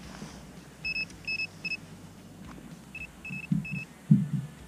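Two sets of three short, high electronic beeps from a small device, about two seconds apart, followed near the end by a few low thumps.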